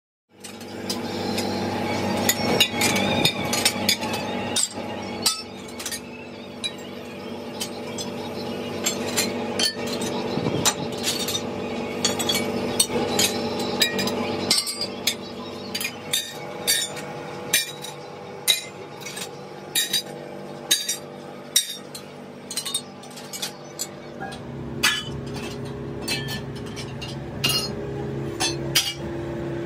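Repeated sharp metallic clinks and knocks as bent rubber hoses on their metal forming rods are handled and set down on a concrete floor, over a steady hum.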